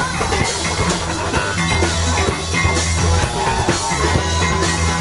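Live band playing rock music through an outdoor PA: drum kit, electric guitars and a strong low bass line.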